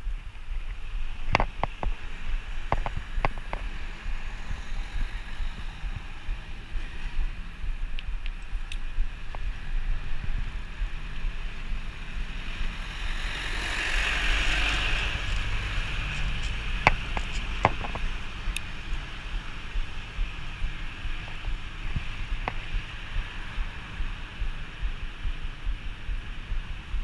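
Wind rumble on the microphone and tyre noise from a bicycle riding on an asphalt street, with sharp rattles as the bike and its wire basket go over bumps. About halfway through, a minibus passes close alongside, its noise swelling and fading over a few seconds.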